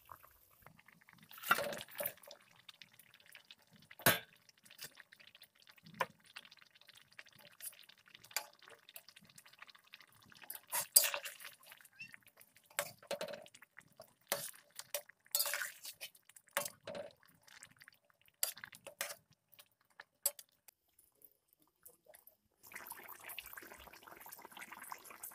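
Fried snakehead fish pieces tipped from a steel bowl into boiling curry in a metal kadai and stirred with a metal spatula: irregular splashes and sharp clinks of metal on metal. A steady hiss of the curry at the boil comes in near the end.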